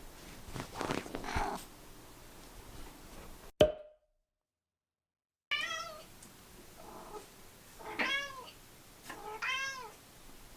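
A house cat meowing: a few soft calls, a sharp click, a short stretch of silence, then three clear meows a couple of seconds apart.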